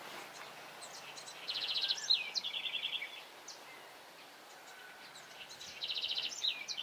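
A songbird singing the same phrase twice, about a second and a half in and again near the end: a fast trill, a short falling note, then another trill. Faint outdoor hiss lies under it.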